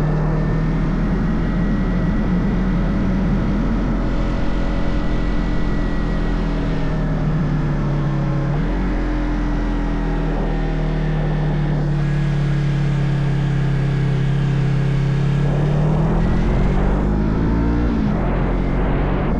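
Motorcycle engine running at a steady cruise on the road. Its note dips and recovers about halfway through, then rises near the end and drops back down.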